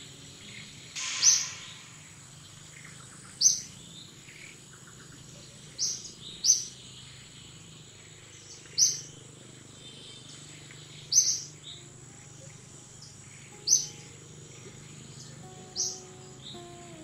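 A bird giving a short, sharp, high chirp about every two and a half seconds, over a steady high-pitched insect drone.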